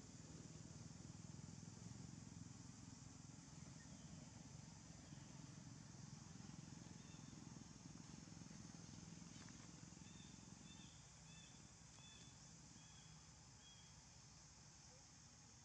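Near silence: faint outdoor background with a low hum that fades about two-thirds of the way through, and a short run of faint high chirps near the end.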